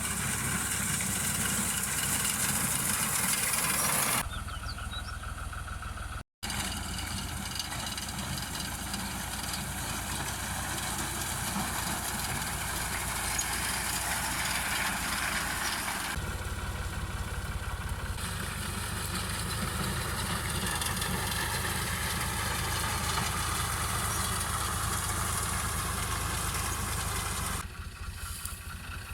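Tractor engine and farm machinery running steadily, a continuous low drone with mechanical rattle that changes abruptly at several cuts.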